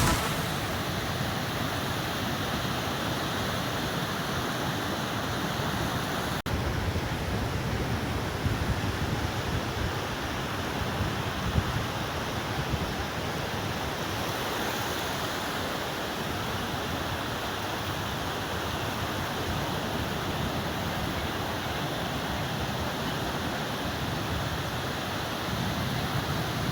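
Steady wash of sea surf on the shore, with a brief dropout about six seconds in.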